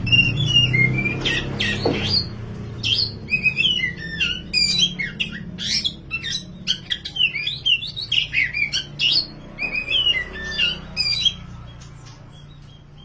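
Oriental magpie-robin (kacer) singing a fast, varied run of whistled, sliding and chattering notes that stops about eleven seconds in, over a steady low hum.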